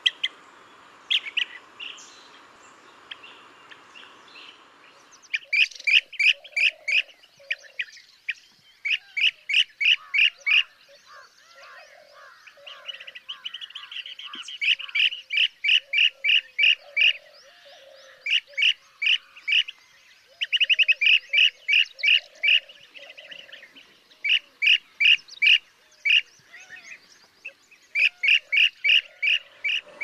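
Blue-tailed bee-eater calling: a rolling, chirping "pr-reee" repeated in quick runs of several notes, about four a second, with short pauses between runs. The first few seconds have only scattered calls over a background hiss; after that the runs come one after another.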